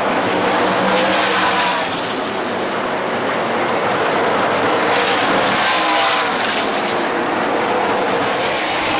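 NASCAR Craftsman Truck Series race trucks' V8 engines running hard as they race past. The sound is loud and continuous, swelling as trucks go by in the first couple of seconds and again about five seconds in.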